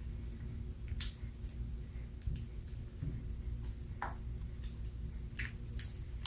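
Slime being handled and squeezed, giving a few scattered short sticky clicks and pops.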